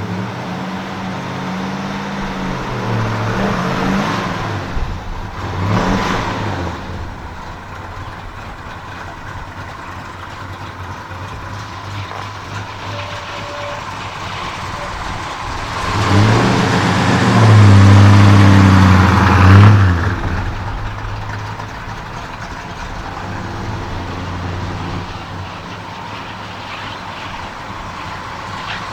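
1970 Dodge Coronet's 440 cubic-inch V8 with dual four-barrel carburettors idling and being revved: a couple of short blips in the first several seconds, then a longer, louder rev held for about four seconds past the middle before it drops back to idle.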